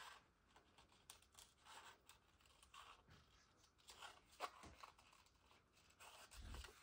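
Faint, irregular snips of small scissors cutting a paper label, with light paper rustling and a soft low bump near the end.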